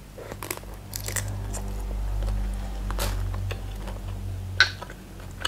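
Close-up chewing of a mouthful of shrimp, with a few sharp crunches, the loudest near the end. Under it a low rumble of passing road traffic swells and fades through the middle.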